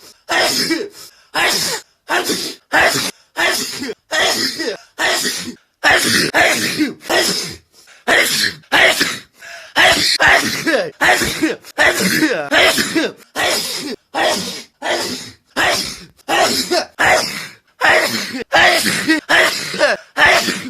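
A person sneezing over and over in rapid succession, about two short, loud sneezes a second with brief gaps between them.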